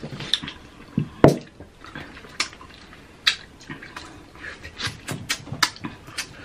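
Close-up wet mouth sounds of people eating juicy orange slices: sucking, slurping and lip smacks in a string of sharp wet clicks, the loudest about a second in.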